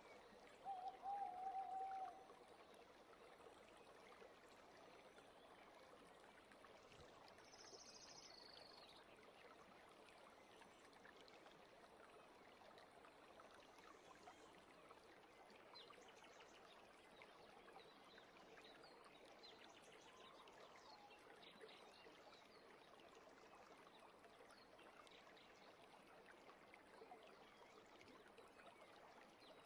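Near silence: faint steady hiss, with a brief wavering tone about a second in and a short high tone near eight seconds.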